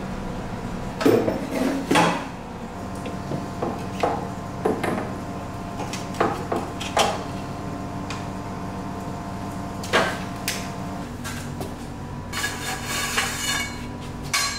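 Scattered clanks and knocks of metal parts and tools being handled in a car's engine bay, over a steady background hum, with a busier stretch of rattling and scraping near the end.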